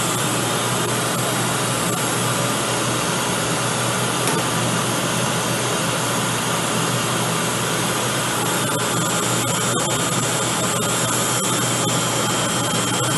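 Computerized circular sock knitting machine running steadily, knitting the sole of a sock after the heel: an even whirring mechanical noise over a low hum, with light irregular clicks from about two-thirds of the way in.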